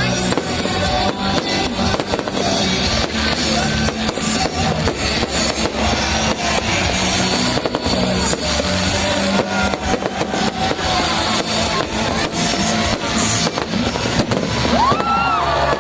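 Fireworks display with repeated bangs and crackling, over loud music played along with the show.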